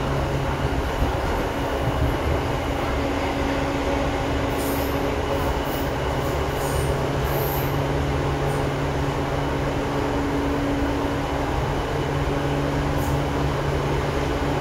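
Seibu 2000 series electric train running, heard from inside the car: a steady rumble of wheels and running gear with a constant low hum from the traction equipment. Short high-pitched squeals come from about four to eight seconds in and again near the end.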